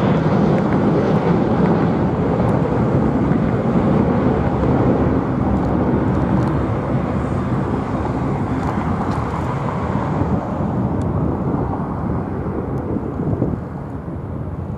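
Jet engines of a departing twin rear-engined McDonnell Douglas jetliner climbing away: a steady, deep roar that slowly fades as the aircraft recedes.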